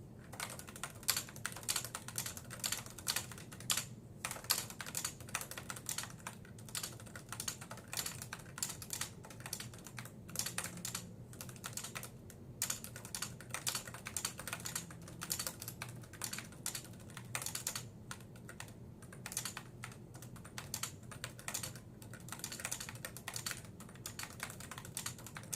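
Typing on a Nissho KB106DE keyboard with Topre electrostatic capacitive switches: a fast, irregular run of soft keystrokes with a few short pauses.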